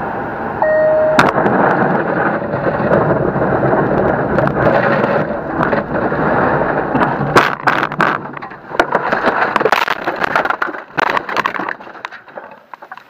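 Heavy road and engine noise inside a car's cabin as it drives fast on a snowy road, with a short beep near the start. From about seven seconds in comes a run of knocks and bangs as the car leaves the road and crashes into deep snow, and the noise thins out near the end.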